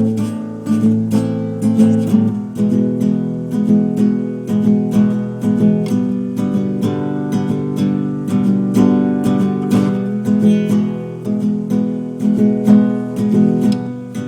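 Background music: an acoustic guitar strummed and picked in a steady rhythm.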